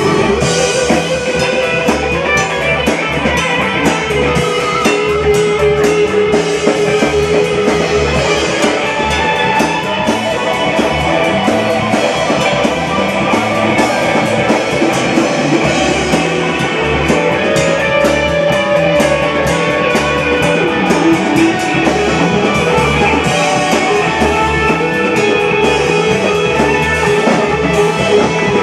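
Live rock band playing an instrumental passage: electric guitar and electric bass over a drum kit, with steady cymbal and hi-hat strokes.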